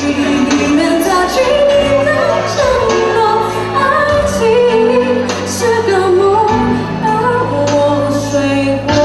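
Live amplified band playing a song with a woman singing lead: a sung melody over held bass notes, drums and cymbal crashes.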